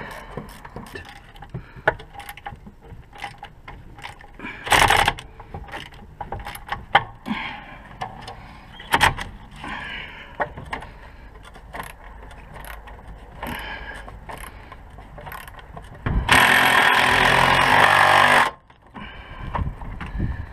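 Ratchet and socket clicking, with metal tools clinking and knocking, as bolts on a Volvo XC90's rear subframe and suspension are tightened. Near the end a loud rush of noise lasts about two seconds.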